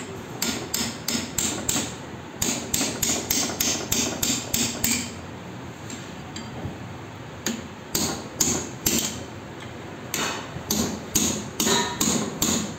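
Hand hammer blows struck in quick runs of about three a second, broken by a pause of a couple of seconds in the middle.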